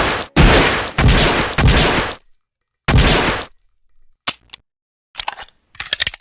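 Colt M1911A1 pistol gunshots, loud and sharp with echoing tails, over the first three and a half seconds. They are followed near the end by a series of short metallic clicks and clatter.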